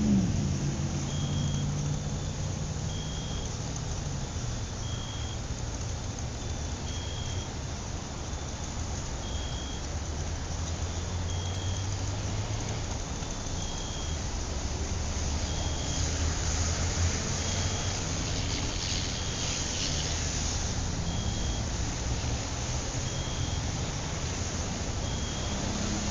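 Steady low rumble of city traffic at night, swelling for a few seconds about two-thirds of the way through as a vehicle goes by. Over it, a short high chirp repeats about every two seconds.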